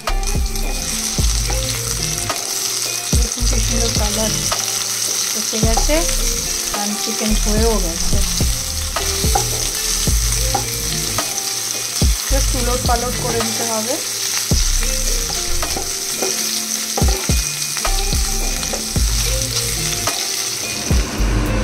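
Marinated bone-in chicken breast frying in butter in a pan, with a steady sizzle and scattered clicks and scrapes of a utensil stirring and turning the pieces.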